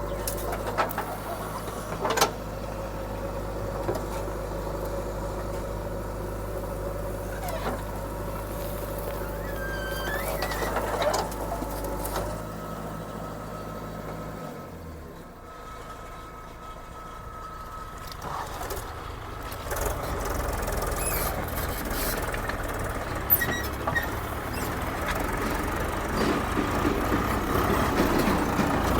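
Diesel engines of a backhoe loader and a tractor running steadily. The engine sound drops away about halfway through and then rises again, with a few sharp knocks.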